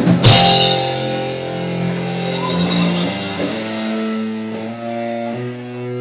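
A rock band's drums land on one loud cymbal crash that rings down over about a second. Guitars then ring out held notes and chords that change every second or so.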